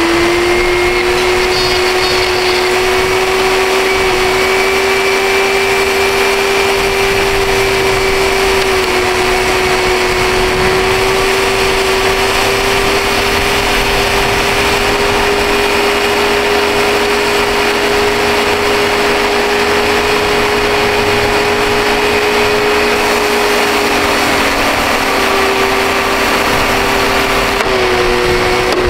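Dirt Devil Ultra MVP upright vacuum cleaner's motor running continuously with a loud, steady whine, its pitch wavering slightly now and then.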